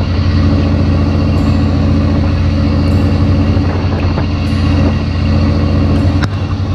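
Fishing boat's engine running steadily, a loud low drone, with a couple of brief knocks and a short dip in level near the end.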